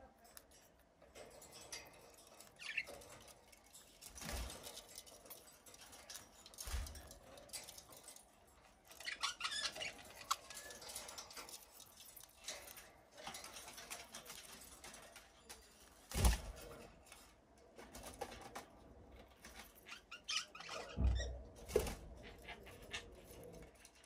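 Budgerigars in a cage: faint chirps and small scratchy taps as a budgie pecks at greens in a clay bowl, with two louder thumps, one about two-thirds of the way through and one near the end.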